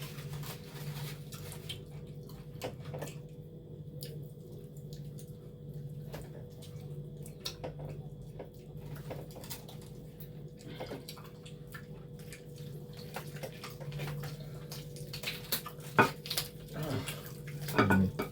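People chewing and sucking on spicy cooked cow leg, with wet smacking and clicking mouth sounds scattered throughout and a few sharper, louder clicks near the end. A steady low hum runs underneath.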